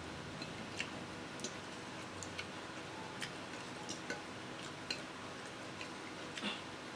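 Metal spoon and fork clinking and scraping on a plate while cutting into food: light, irregular clicks, one or two a second.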